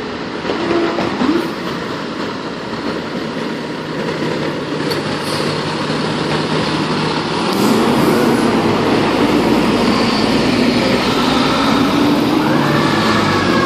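Diesel engines of a fire engine and a ladder truck running as the rigs pull out. The rumble grows louder about seven or eight seconds in. Near the end a high tone sets in and slides slowly down.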